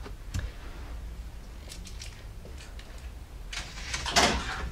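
Handling noise as fishing rods and reels are moved around: a click just after the start, a few light taps, and a longer rustling scrape about four seconds in.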